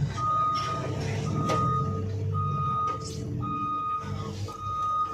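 A vehicle reversing alarm beeping a single steady tone about once a second, five beeps in all, over a low engine rumble.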